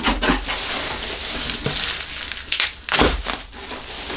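Bubble wrap and plastic packaging rustling and crinkling as hands dig through a cardboard box, with a cluster of sharper crackles about three seconds in.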